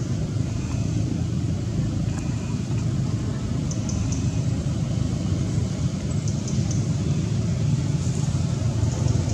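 Steady low rumble of motorbike traffic on the road behind, with a few faint, short high clicks.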